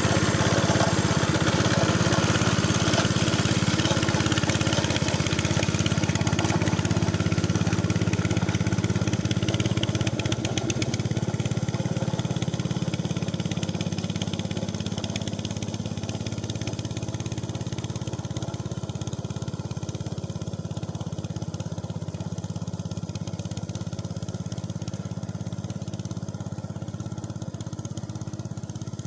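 Engine of a Capung Metal two-wheel hand tractor running steadily while ploughing a rice paddy, growing gradually fainter.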